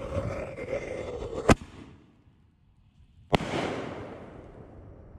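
Black Cat Black Box artillery ball shell: the fuse hisses and spits, then the lift charge goes off with a sharp bang about one and a half seconds in. About two seconds later the shell breaks with a second sharp bang that fades away slowly.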